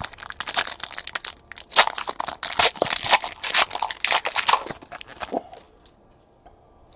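Foil wrapper of a 2018 Panini Elite Extra Edition baseball card pack being torn open and crinkled by hand: a dense crackle of tearing that thins out and stops about five seconds in.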